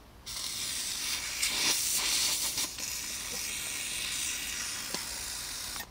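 A steady hiss that cuts in sharply about a quarter second in and stops abruptly just before the end, with a few faint clicks in it.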